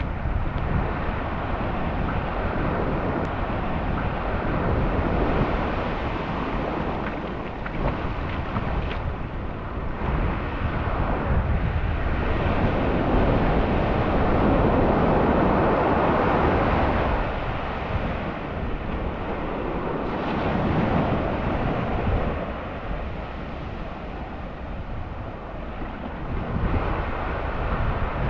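Surf washing onto a beach with wind buffeting the microphone, swelling louder about halfway through.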